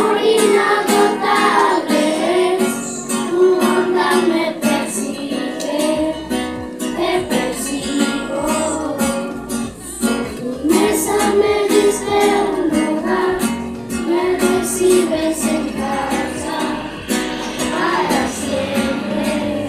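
Children singing a song together, accompanied by a strummed acoustic guitar.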